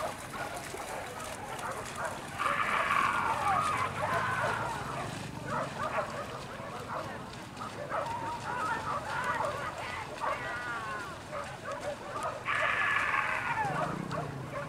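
A pack of hunting dogs barking and yelping excitedly, mixed with people's voices, with two louder stretches of yelping, a couple of seconds in and near the end.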